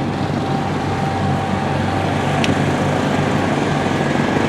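An engine running steadily with a low, even drone, growing slightly louder.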